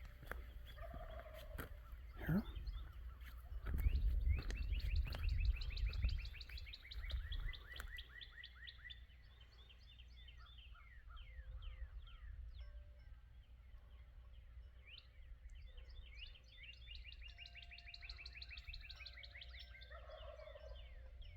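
Wild turkeys gobbling: a long run of rapid rattling gobbles a few seconds in, and another near the end.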